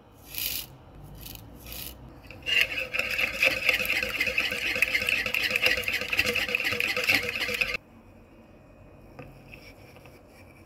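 Wire whisk beating eggs in a plastic mixing bowl: fast scratchy strokes of the wires against the bowl, running for about five seconds and stopping abruptly. Before it, a few brief soft hisses as salt is tipped from a spoon into the bowl.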